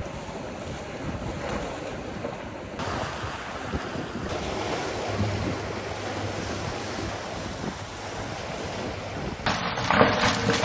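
Waves washing and breaking against shoreline rocks, with wind rumbling on the microphone. Near the end it gives way to a short burst of rustling and handling noise.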